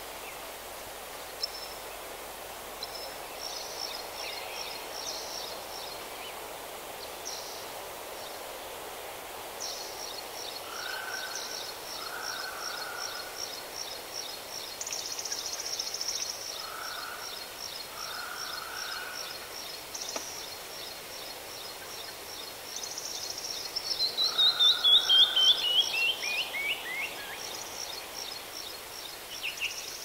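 Songbirds singing over a steady outdoor hiss: a fast run of high, evenly repeated notes through much of the stretch, and about three quarters of the way through, a loud song of notes stepping down in pitch.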